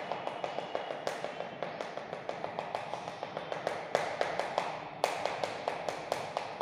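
Chalk tapping dots onto a chalkboard in a fast, even run of about seven taps a second, with two sharper knocks about four and five seconds in.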